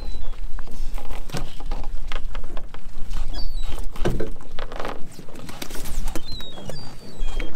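Lobster pot being handled: irregular knocks, rattles and rustles of its netted frame and catch as a gloved hand works inside it, over a low rumble of wind on the microphone. A few faint high chirps come in around the middle and near the end.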